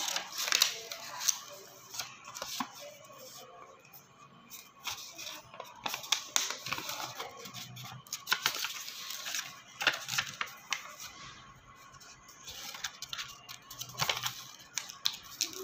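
A sheet of paper rustling and crackling as it is handled and folded by hand, in irregular bursts of crinkling and creasing.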